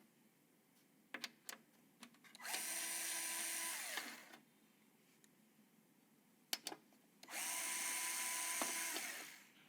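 Small electric screwdriver driving two screws, each a motor whir of about a second and a half to two seconds, preceded by a few light clicks as the bit is set. On the first screw the pitch drops near the end as the screw seats.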